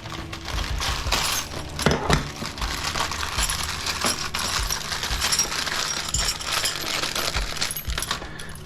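Small scrap metal pieces, little copper fittings and steel bits and screws, clinking and rattling as they are handled and dropped, a dense run of quick irregular clicks.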